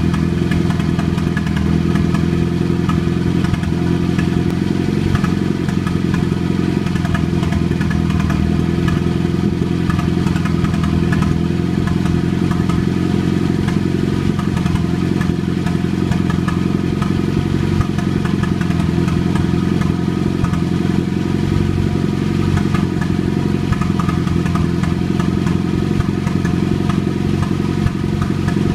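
An engine running steadily at idle with a popping noise over its even hum.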